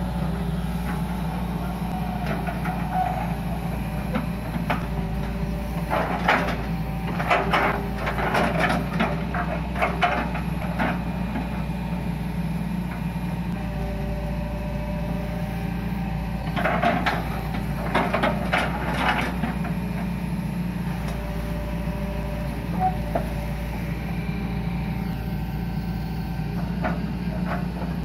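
Hitachi EX120 long-reach excavator's diesel engine running steadily under hydraulic load, with three spells of knocking and scraping as the bucket works the earth bank.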